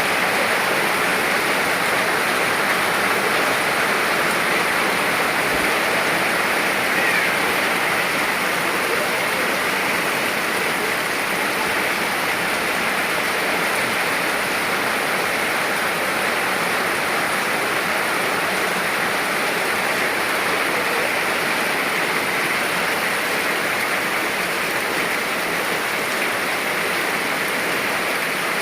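Rain falling steadily: a dense, even hiss of rainfall with no separate drops or thunder standing out.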